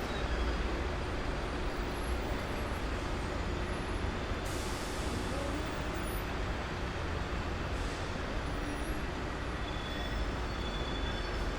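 Dense downtown city traffic: a steady low rumble of engines and tyres. About four and a half seconds in, a burst of hiss lasts roughly a second and a half, and faint high squeals come near the end.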